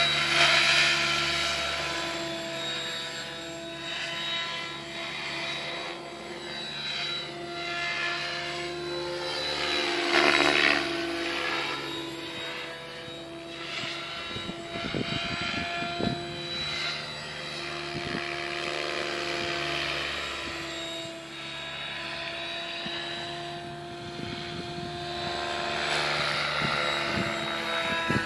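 Mikado Logo 600 SX electric RC helicopter in flight: a steady rotor and motor whine that swells and fades, its pitch sweeping as the model flies passes, loudest about ten seconds in.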